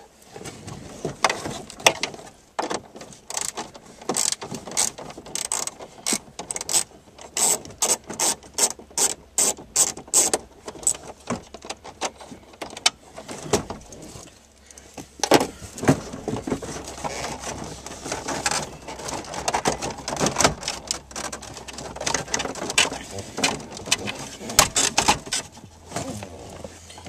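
Ratchet-like clicking, a fast run of sharp clicks, followed by irregular knocks and rattles of plastic dash trim being worked loose while a car dashboard is taken apart.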